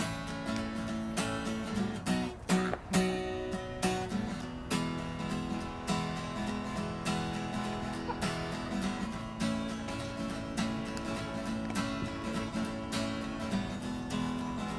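Background music led by a strummed acoustic guitar, chords struck in a steady rhythm.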